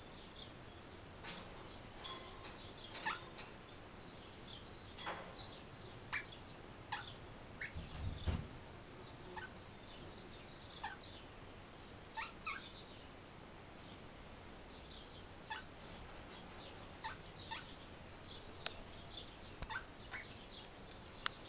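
Eastern rosella parrot giving short, sharp chirps at irregular intervals, many of them falling in pitch. A low thump about eight seconds in.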